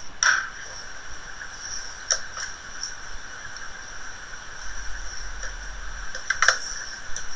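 Steady background hiss from the recording microphone, with a few short faint clicks: one just after the start, one about two seconds in and a sharper one near the end.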